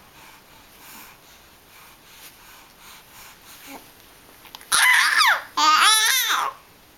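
Young child giving two loud high squeals or shrieks about five seconds in, the first sliding down in pitch and the second wavering up and down, after a few seconds of soft babble and small mouth noises.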